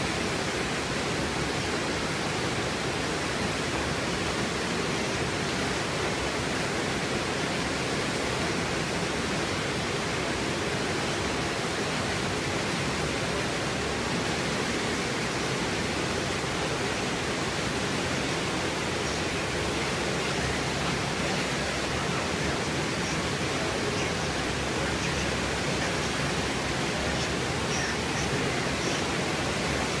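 Steady rush of a waterfall and whitewater rapids heard from high above.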